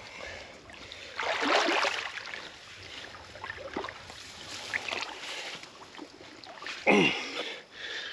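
Water sloshing and splashing in uneven bursts as a heavy iron anchor is dragged through shallow river water and mud by a man wading in it, loudest about a second in. Near the end comes a short grunt that falls in pitch.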